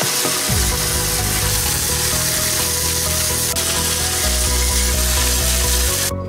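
Wire-feed welder arc crackling and sizzling steadily as a bead is laid on the steel tube frame, cutting off suddenly near the end. Background music plays underneath.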